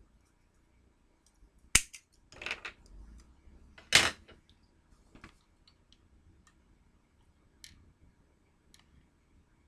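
Handling noises of painted toy chain links and a hot glue gun on a tabletop: a sharp click a little under two seconds in, a short rattle, then a louder knock about four seconds in, followed by a few faint clicks.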